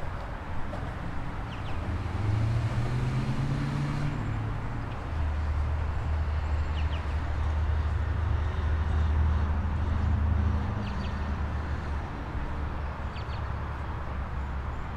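A motor vehicle's engine nearby: a low drone that rises in pitch over a couple of seconds, then holds steady and fades about ten seconds in, over steady city background noise.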